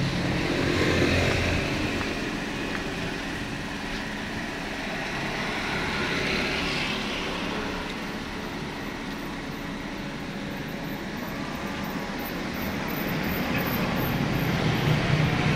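Road vehicle noise that swells and fades several times, without a clear steady engine note.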